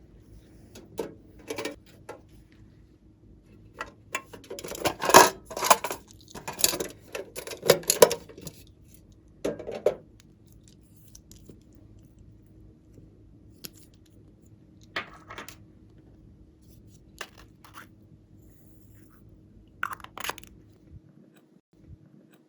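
Hands handling slime and plastic piping bags: bursts of crinkling, crackling and squishing, densest in a cluster in the first half, then a few scattered clicks.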